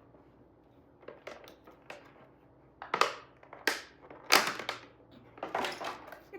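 Packaging crinkling as it is handled, in a series of short crackling bursts, the loudest about three seconds and four and a half seconds in.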